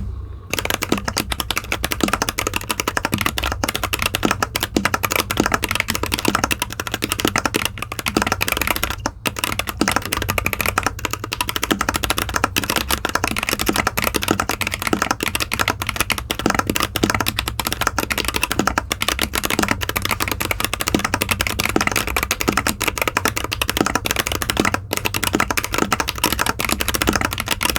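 Fast continuous typing on a mechanical keyboard with Gateron Clear Pro linear switches (38 g spring, factory lubed) in a foam-dampened anodized aluminium case with Cherry-profile keycaps, on a rubber mat. Dense keystroke clicks with a brief pause about nine seconds in, over a steady low hum.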